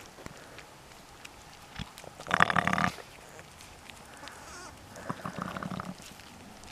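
Sheep bleating twice: a short, loud, wavering bleat about two seconds in and a longer, quieter one about five seconds in.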